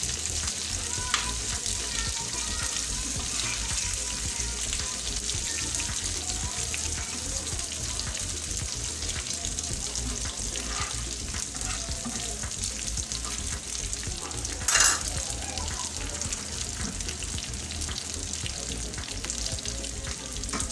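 Beef slices sizzling steadily as they fry in oil on an iron tawa, turned now and then with a spatula; a brief louder scrape about fifteen seconds in.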